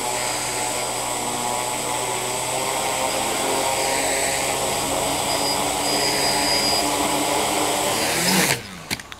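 A tricopter's three electric motors and propellers spinning on the ground at low throttle: a steady whirring hum that grows a little louder as the throttle is slowly raised. It cuts off about eight and a half seconds in, followed by a few small clicks.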